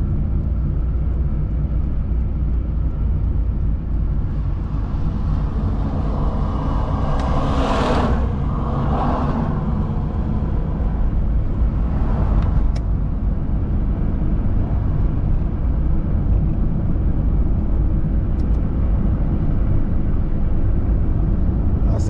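Car driving along a highway: a steady low rumble of tyres and engine. Another vehicle passes, its noise swelling and fading about eight seconds in, and a smaller pass follows near twelve seconds.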